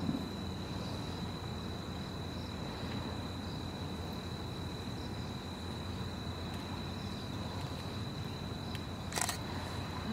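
Steady outdoor background noise with a constant thin high-pitched tone over a low rumble, and a single short click about nine seconds in.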